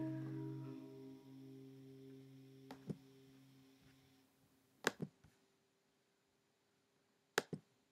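Hollow-body electric guitar's last chord ringing out and fading away over about four seconds. After it come a few light clicks and knocks.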